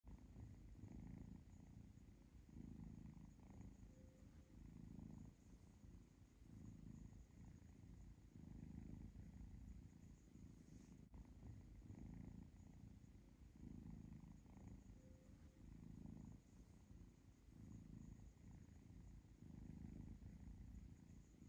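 Cat purring softly and steadily, the low rumble rising and falling in even cycles about once a second as it breathes in and out.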